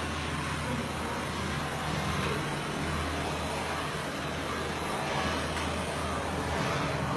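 Hose-fed gas flame torch burning with a steady rushing hiss over a low rumble.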